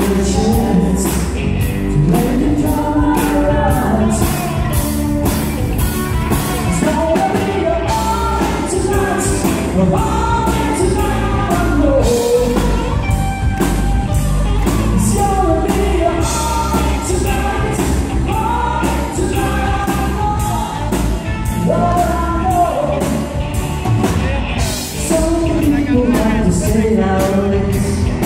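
Live country band performing a song: a man sings lead into a microphone over drums, electric guitar, bass and keyboards, with a steady beat.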